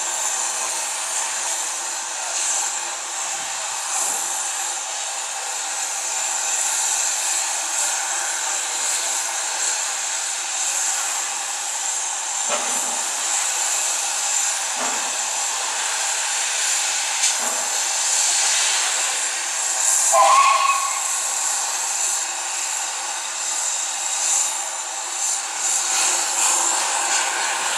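Steam locomotive hissing steam steadily, with a few soft low puffs and a brief rising tone about two-thirds of the way through.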